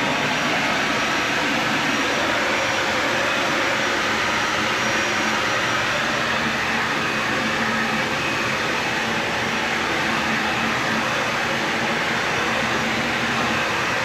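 Dyson vacuum cleaner running steadily, a constant loud rushing noise.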